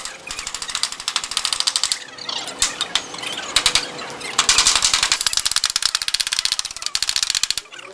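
A fast, uneven run of sharp mechanical knocks and rattling, many per second, varying in strength and stopping abruptly at the very end.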